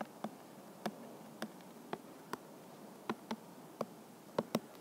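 A stylus tapping on an iPad's glass screen while writing by hand: about a dozen light, irregular clicks over a faint steady hiss.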